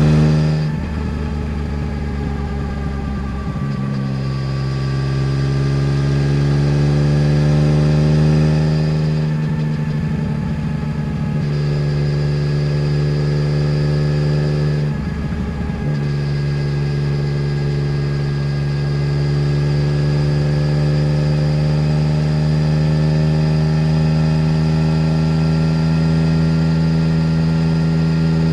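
Yamaha Tracer 900 GT's three-cylinder engine running through a full Roads Italia aftermarket exhaust, heard from the passenger seat under steady throttle. The steady engine note breaks up briefly three times, about a second in, about ten seconds in and about fifteen seconds in, then carries on at much the same pitch.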